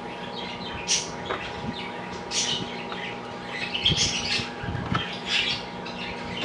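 Small birds chirping repeatedly in short high calls, with a few low thumps about four to five seconds in over a faint steady hum.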